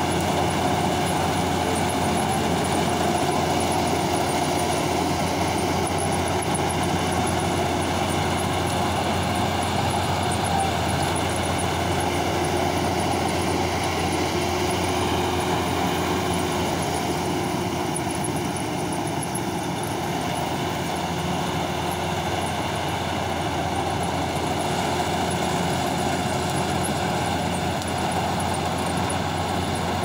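Marksan MS-1200 Mudmaster crawler combine harvester running steadily while cutting and threshing standing grain: a continuous machine drone. It gets a little quieter for a few seconds past the middle, then comes back up.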